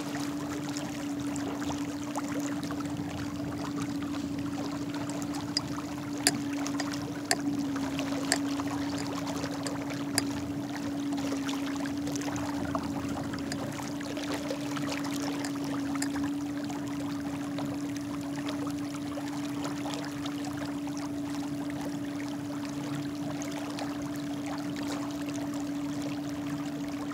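A small 17-pound-thrust electric trolling motor runs steadily with a constant, even hum, over the rush of water churned up behind the kayak. A few sharp clicks come between about five and ten seconds in.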